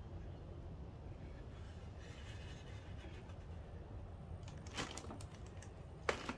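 Faint handling noise of a 12-inch car subwoofer being turned over in the hands, with two light knocks in the second half over a steady low rumble.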